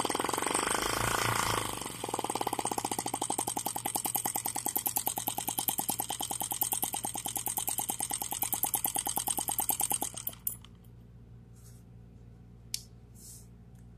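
Miniature single-cylinder four-stroke spark-ignition model engine running, firing in a fast, even stream of pops, then stopping abruptly about ten seconds in. A single sharp click follows near the end.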